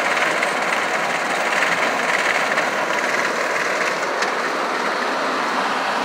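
Farm tractor running under load, heard from inside the cab, pulling a rotary cutter that is shredding corn stalks: a steady, even mix of engine and cutter noise.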